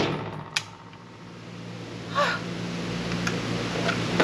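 The echo of a 7.62×51 shot from an IWI Galil ACE pistol dying away in an indoor range booth, over the steady hum of the range ventilation. A sharp click comes about half a second in, a brief voice sound around two seconds, and another small click near the end as the gun is cleared.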